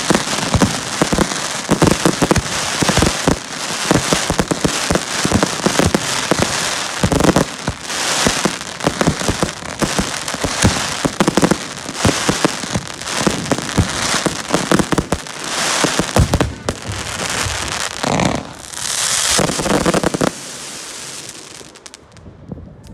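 Fireworks display: a dense barrage of bangs with constant crackling, which dies away about twenty seconds in.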